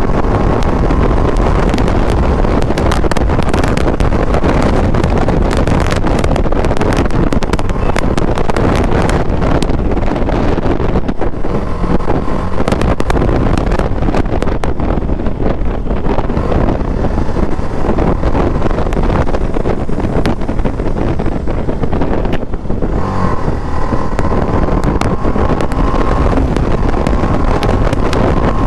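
TVS Apache RR310's single-cylinder engine running steadily as the bike is ridden at low speed, heard from on the bike with wind noise on the microphone.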